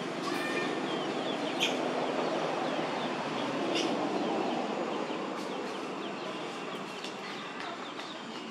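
Outdoor ambience: a steady noisy background with short bird chirps scattered through it.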